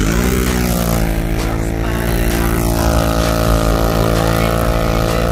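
Quad (ATV) engine revving up at the start, then held at a steady high pitch under load as the machine ploughs through deep snow.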